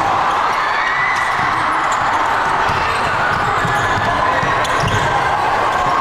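A basketball bouncing on a hardwood gym floor in several irregular thuds, over the steady din of a crowd in a large gym.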